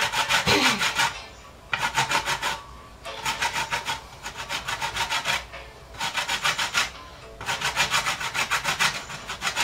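Lemon peel being grated on a flat metal hand grater: about six bursts of rapid rasping strokes, with short pauses between them.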